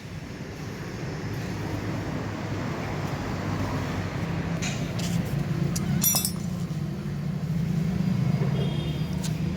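A motor vehicle engine running steadily, growing a little louder, with a few sharp metal clinks of tools about halfway through.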